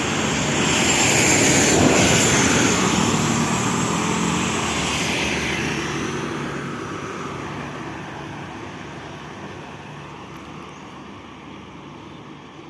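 A motor passing by: an engine noise that swells to its loudest about two seconds in, then slowly fades away, its pitch gliding downward as it goes.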